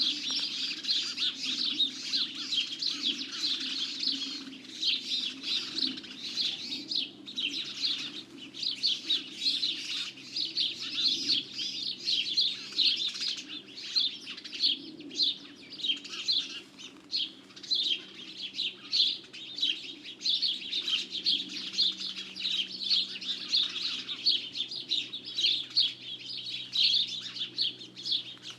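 A dense chorus of small songbirds chirping and singing continuously, many calls overlapping, with a faint steady low hum underneath.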